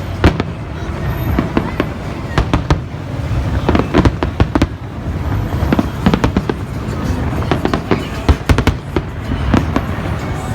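Fireworks bursting overhead: many sharp bangs and crackles in rapid, irregular succession, some in quick clusters, over a continuous rumble.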